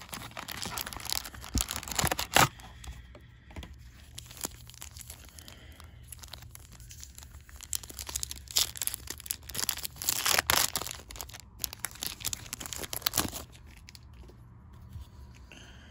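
Foil Yu-Gi-Oh booster pack wrappers crinkling as they are handled and a pack being torn open. There are short bursts of crackling crinkles in the first couple of seconds, then a longer run of tearing and crinkling from about eight seconds in. It dies down shortly before the end.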